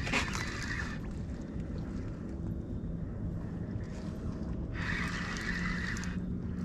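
Steady low rumble of a small boat on the water, broken twice by a short burst of whirring hiss, each about a second and a half long, one at the start and one near the end, with a click just after the first begins.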